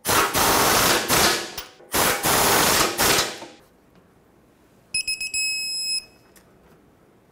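Impact gun spinning a crossmember nut down in two runs of about a second and a half each. About five seconds in, a digital torque wrench gives a few short beeps and then a steady high beep for about a second, signalling that the nut has reached its set torque of 85 foot-pounds.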